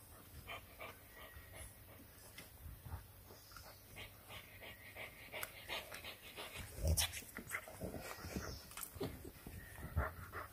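Two English bulldog puppies play-wrestling, panting, with short irregular scuffles and soft thumps; the loudest thumps come about seven and ten seconds in.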